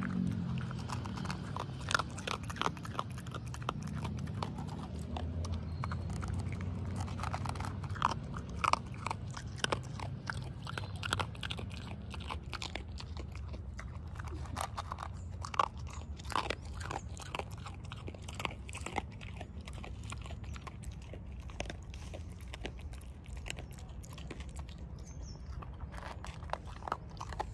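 A dog eating dry kibble from a stainless-steel bowl: irregular crisp crunches and clicks of chewing, with no let-up.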